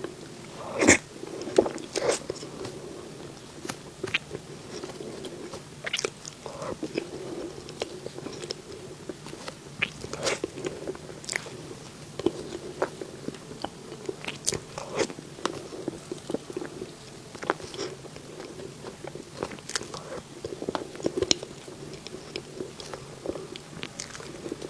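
Close-miked eating sounds: a person biting and chewing dessert, with many irregular wet mouth clicks and a few crunchy bites.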